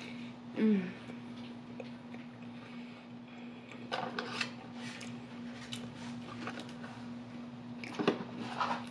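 Close-up eating sounds: a bite of Big Mac being chewed, with a short falling 'mm' just before a second in. Clicks and paper rustles come about four seconds in and again near the end as fingers pick at fries and a chicken nugget in their cardboard cartons. A steady low hum runs underneath.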